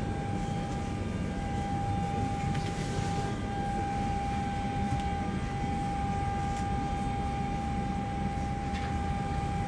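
Steady hum of a parked airliner's onboard systems inside the cabin: a low rumble with one constant high-pitched whine over it.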